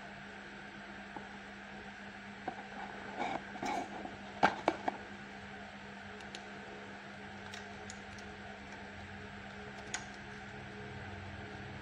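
Metal clicks and taps of a screwdriver working the screw of an overlock machine's front feed dog, a cluster of them with a few sharp clicks around four to five seconds in and one more click near the end. A steady faint hum underneath.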